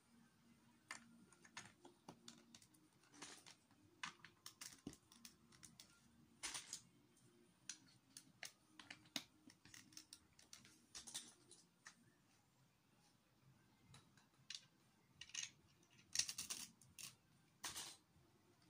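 Plastic Lego bricks clicking and rattling as they are handled and pressed together: faint, irregular small clicks, busiest near the end.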